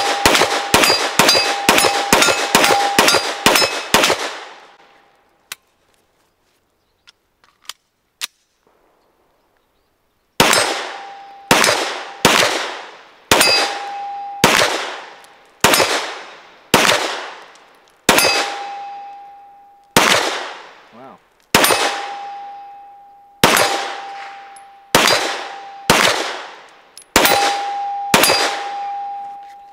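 Pistol shots from a 9mm Glock 48 fired at a steel target, each hit making the steel plate ring. A fast string of about a dozen shots, roughly three a second, stops about four seconds in. After a pause of several seconds with a few faint clicks, slower shots follow, about one a second, each with its ring.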